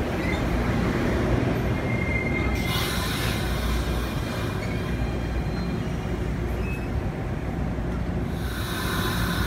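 Commuter train running through the station: a steady rolling rumble and rail noise, with a brief thin wheel squeal about two seconds in.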